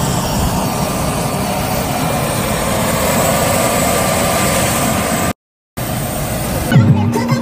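Steady engine noise, loud and even, that cuts out abruptly for a moment a little after five seconds in. Music with a beat comes in near the end.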